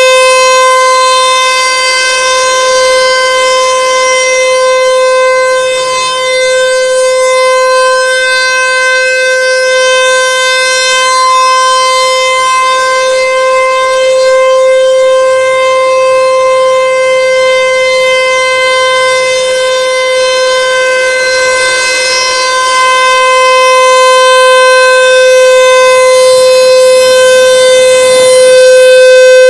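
American Signal Tempest 135 AC/DC outdoor warning siren sounding a steady alert tone during a routine siren test. It is very loud, holds one unchanging pitch and swells and fades gently in loudness.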